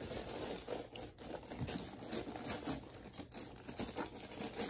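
Tissue paper rustling and crinkling in a shoebox, with small knocks and scrapes of handling, as sneakers are packed back into the box.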